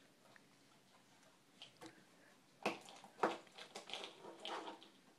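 A toddler laughing in several short bursts, starting about halfway through.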